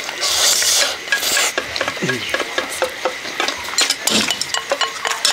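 Chopsticks clicking and scraping against bowls as food is stirred and eaten, a rapid string of short clicks with some rustling near the start.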